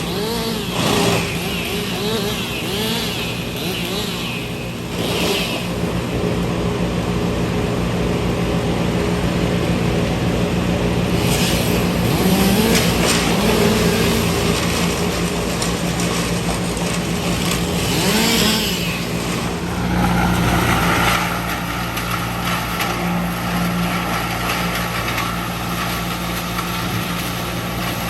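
Engine noise from tree-removal machinery: a steady engine drone, with the revs rising and falling several times.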